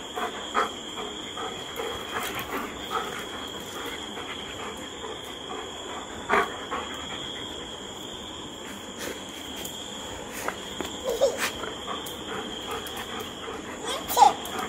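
Dogs moving and sniffing close by on a tiled floor: scattered soft clicks and brief short sounds, with no barking, over a steady high chirring of crickets.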